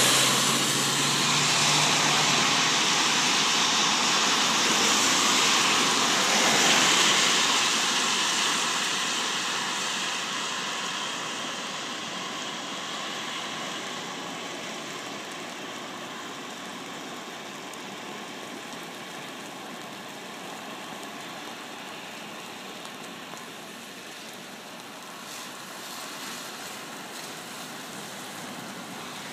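Muddy floodwater rushing over a curb and through flattened cattails: a steady rushing, loudest for the first several seconds and then gradually softening to a lower, even flow.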